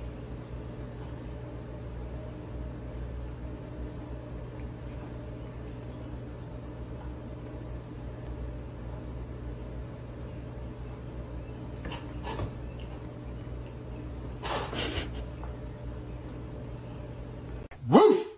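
Steady low electrical hum filling a room, with two brief faint sounds about twelve and fourteen seconds in. Right at the end, a short loud bark.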